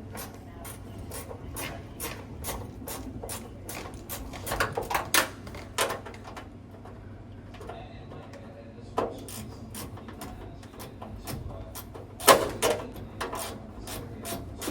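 Rapid, regular metallic clicking from a small wrench tightening the bolts that hold a furnace blower assembly in place. The clicking stops for a moment near the middle, and a louder metal knock comes near the end.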